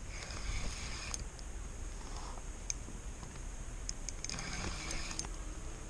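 Spinning fishing reel being cranked as a hooked bass is reeled in, with light ticks and knocks of handling.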